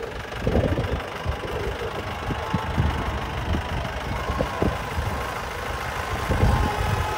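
Off-road jeep engine running steadily, a little louder near the end.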